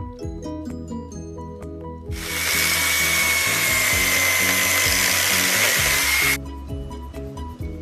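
Power tool running for about four seconds: a steady high whine over a loud hiss, starting about two seconds in and cutting off suddenly. Background music with a steady beat plays throughout.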